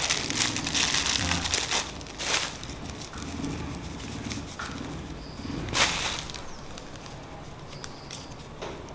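Thin plastic bag crinkling and crackling as it is handled and unwrapped, densest in the first two seconds. Two short louder rustles follow, one a little past two seconds and one near six seconds, then quieter handling of the photo prints.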